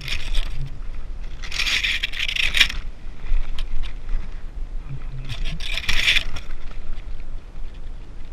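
Rustling and scraping in three bursts, the longest lasting about a second, over a steady low rumble.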